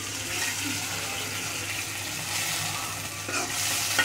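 Onions and green chillies frying in oil and a little water in a metal wok, a steady sizzling hiss. Near the end a metal spoon knocks against the pan as stirring starts.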